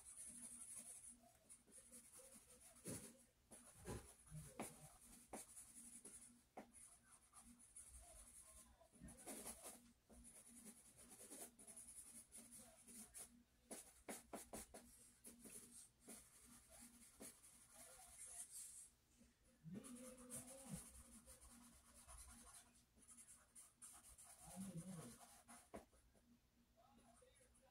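Faint scratching and tapping of a drawing tool on sketchpad paper as lines are sketched in short strokes. Twice in the second half a faint, brief low pitched sound is heard.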